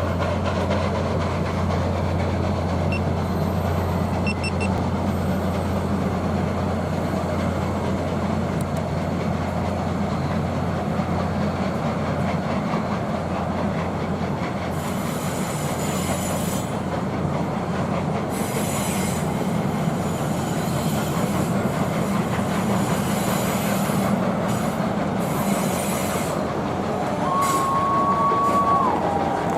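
Union Pacific Big Boy steam excursion train rolling past at close range: a steady rumble of wheels on rails, with a low hum that fades out about a third of the way in. Bursts of high hissing noise come in the second half, and a whistle tone starts near the end.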